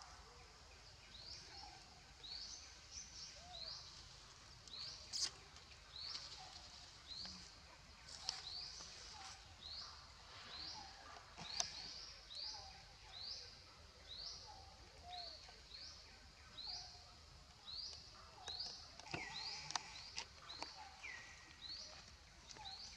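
Faint animal call: a short rising chirp repeated evenly, about one and a half times a second, with a few lower, falling calls near the end.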